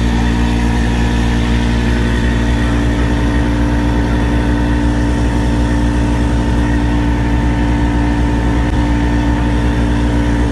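A large engine running loud and steady at one constant speed, with a deep low hum.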